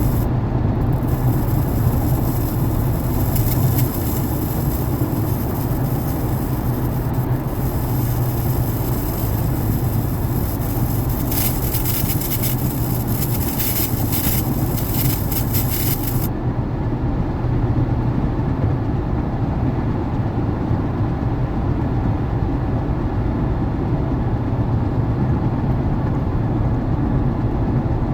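Static hiss and crackle from a 2012 Lincoln MKZ Hybrid's audio speakers while the audio system is switched off, cutting off abruptly a little past halfway. Under it runs a steady low cabin rumble.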